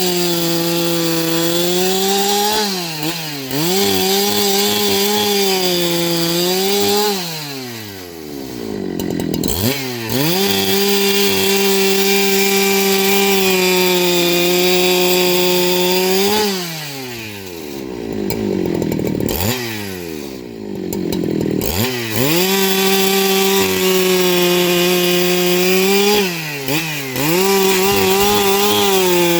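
Husqvarna 395XP two-stroke chainsaw cutting wood into boards. The engine holds a steady high speed under load in the cut. Twice it drops off toward idle and revs back up for a few seconds between passes.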